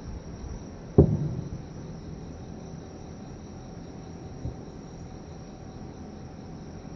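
Distant aerial firework shell bursting: one sharp boom about a second in that rumbles away, then a much fainter thump a few seconds later. Insects chirp steadily underneath.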